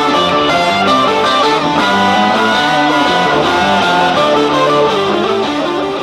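Background music led by plucked guitar, steady and full, starting to fade out near the end.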